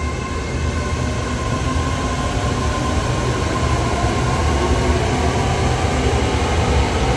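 Red Line electric commuter train (Hitachi AT100) pulling out of the station: a steady rumble of wheels on rail that grows louder, with a faint motor whine rising as it picks up speed.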